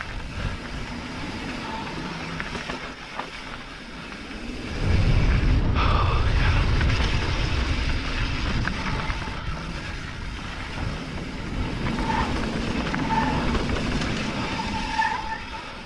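Mountain bike descending a dirt singletrack: wind buffeting the camera's microphone and tyres rolling over dirt. The wind rumble grows much louder about five seconds in as the bike gathers speed, then eases near the end.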